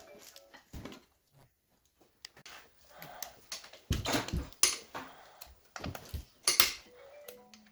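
Irregular metallic clinks and knocks of tools and engine parts being handled during engine assembly, with a heavier knock about four seconds in.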